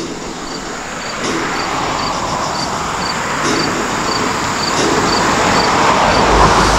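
An insect chirping steadily, about two short high chirps a second, while road traffic noise swells to its loudest near the end as a vehicle passes.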